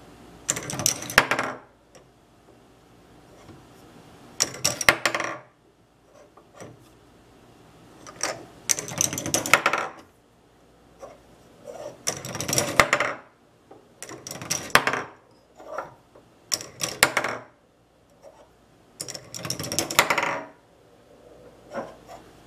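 Plastic K'nex balls rolling along a K'nex track and clattering down through the plastic levers and rods of a K'nex Infinity Switch ball-machine element. Each ball makes a burst of rattling clicks lasting a second or two. A new run starts every few seconds, about eight times.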